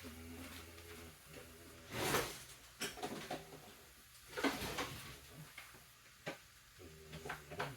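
Kitchen handling noises: a few short clattering knocks and scrapes, the loudest about two seconds in and again about four and a half seconds in. A faint pitched whine comes and goes at the start and near the end.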